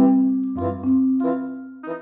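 Background music: a bouncy tune of struck mallet-percussion notes, like a glockenspiel or marimba, over a bass line.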